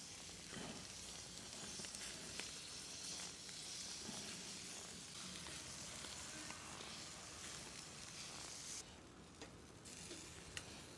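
Food frying in a pan over a wood fire: a steady sizzle with scattered small pops, easing briefly near the end.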